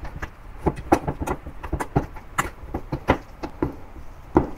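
Metal spoon knocking against a stainless steel mixing bowl while mashing steamed sweet potato: an irregular run of short clinks, about three or four a second.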